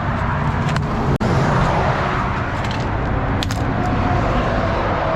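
Loud, steady motorway traffic noise from passing vehicles, with a couple of light clicks.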